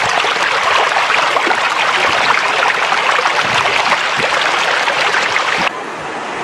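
Fast floodwater rushing in a steady, dense wash of water noise. A little before the end it cuts abruptly to a quieter stretch of water noise.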